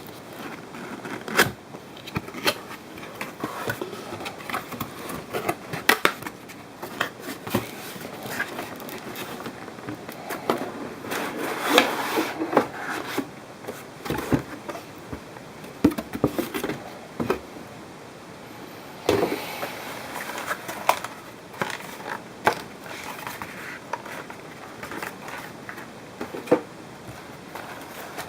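Handling noise from a GH-100 pistol grip: irregular clicks, knocks and scrapes, with denser scraping about a third of the way in and again after the middle.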